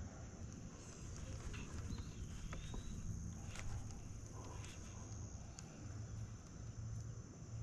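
Quiet summer outdoor ambience: insects droning steadily at a high pitch over a low hum, with a few faint clicks.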